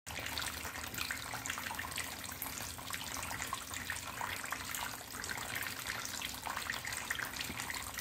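Thin jets of water from a small plastic-bottle fountain fall steadily into a shallow tub of water and pebbles, making a continuous patter of small splashes and trickling.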